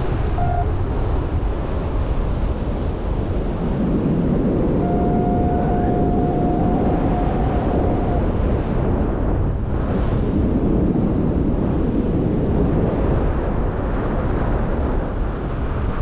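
Strong wind rushing over the microphone of a paraglider in flight, a loud steady rush that wavers slightly in strength. From about five to eight seconds in, a thin steady tone sounds over it.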